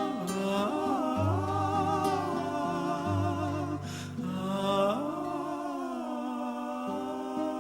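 Music: a wordless, humming-like vocal melody with vibrato over sustained low notes that drop away about six seconds in.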